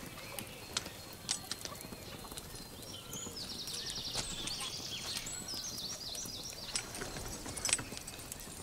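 Horses' hooves clopping in irregular, scattered knocks, as horses move about. A high, fast chirping trill sounds over them for a few seconds in the middle.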